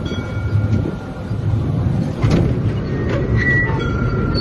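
Miniature train cars rumbling along the track on a curve, with a brief high wheel squeal a little past three seconds in.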